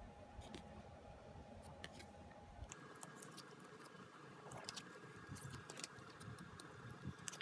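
Faint scattered clicks and light rustles of photocards and packaging being handled, over a low room hum whose tone changes abruptly about three seconds in.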